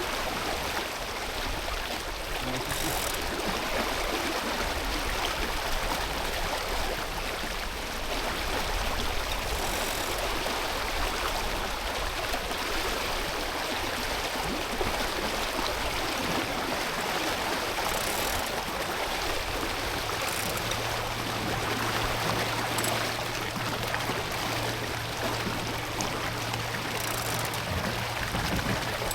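Steady rush of water streaming past a sailboat's hull as it sails under spinnaker. A low steady hum joins about twenty seconds in.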